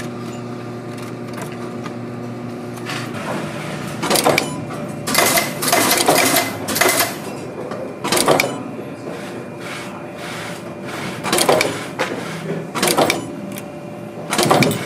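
Hook-setting machine pressing lace hooks into a leather boot upper: a steady motor hum, then a run of sharp clacks, one stroke of the press at a time, spaced about a second or more apart.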